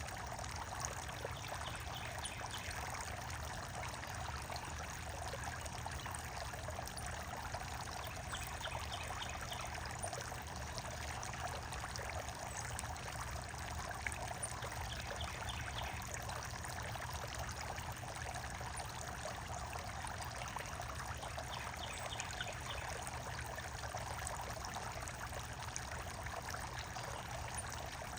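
Steady splashing and trickling of running water. A few short series of quick high chirps from small birds come through now and then.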